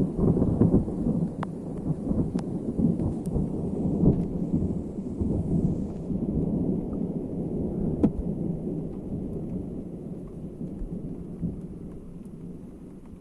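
Thunder rolling and rumbling after a close lightning strike, slowly dying away over several seconds. The uploader takes these powerful, window-shaking detonations for positive cloud-to-ground lightning strikes about 3 to 4 km off.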